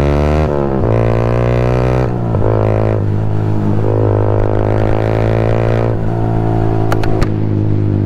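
Yamaha motorcycle engine pulling up through the gears from second to fourth: the engine note climbs and drops back at each shift, several times.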